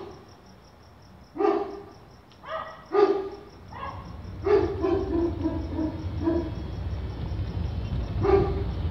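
Dog barking: a few single barks, then a quick run of about six barks starting about four and a half seconds in, and one more near the end. Under them, the low rumble of an approaching car grows louder.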